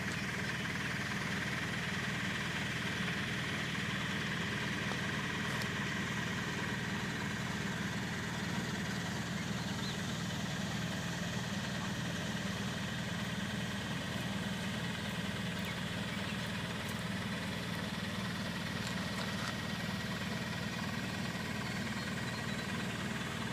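Machinery running steadily: an even, low hum with a thin, high steady whine above it.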